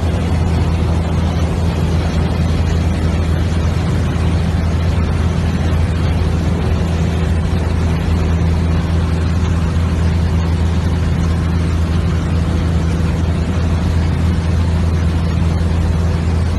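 Aircraft engine droning steadily in flight, with a low hum and loud wind rushing in through an open window or door. Wind also buffets the microphone.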